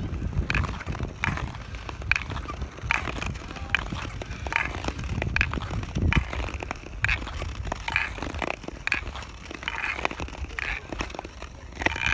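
Ice skate blades gliding and scraping on natural lake ice, a push-off stroke about every second, over a steady low rumble.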